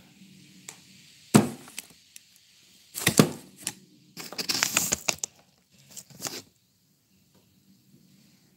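Handling noise from small hard objects being picked up and put down: a sharp click about a second and a half in, a cluster of knocks and clinks about three seconds in, a short rustling scrape, then two more clicks.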